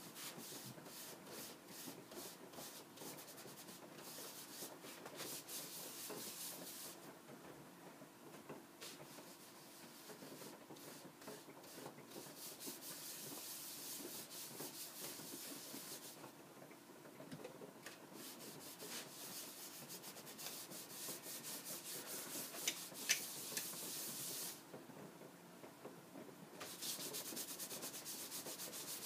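A rag rubbing wax mastic into a thin sheet of wood veneer, with fast, even back-and-forth scrubbing strokes that stop briefly three times.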